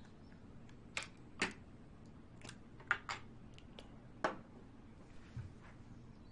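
Makeup containers being handled: small clicks and taps from a compact case and a cosmetic bottle, about six sharp ticks at uneven intervals.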